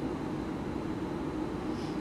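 Steady room noise: an even hiss with a low hum, like ventilation, with no speech or music.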